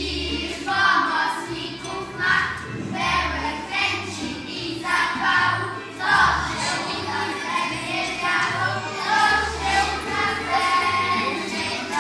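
A group of children singing a song together over a recorded backing track with a regular bass line.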